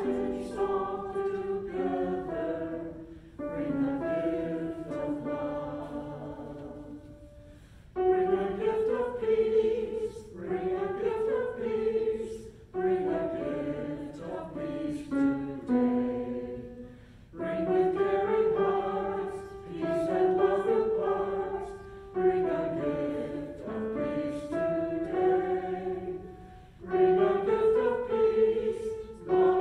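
A choir singing a slow piece in phrases of about four to five seconds, each ending in a short pause.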